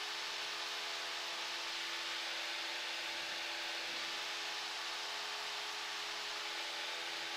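Cessna 172 engine and cabin noise heard through the aircraft intercom: a steady hiss with a faint, even engine drone at constant power.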